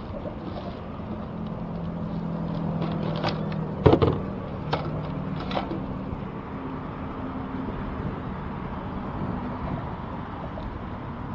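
A few sharp knocks and clicks of fishing gear being handled in a plastic tackle crate with PVC rod holders, the loudest about four seconds in. They sit over steady outdoor noise and a low droning hum that fades out after about six seconds.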